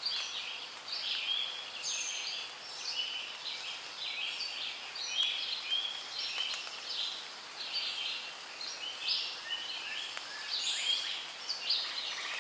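Many small birds chirping together, short overlapping calls following one another without a break.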